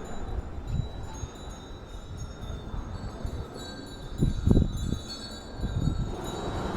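Small hanging bells or wind chimes tinkling faintly in the breeze, with irregular low thumps underneath, the loudest about four and a half seconds in.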